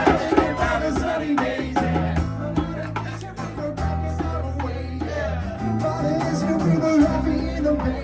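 Live band music with bass, guitar and drums playing a steady groove, with some singing.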